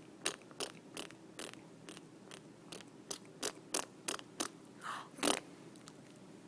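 A five-month-old baby making spitting sounds with her lips: a run of short, wet pops, about two or three a second, ending with a longer, louder one about five seconds in.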